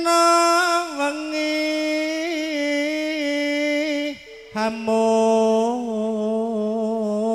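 A campursari singer holding two long, drawn-out notes with a slight vibrato, the second lower than the first, with a short break a little past the middle.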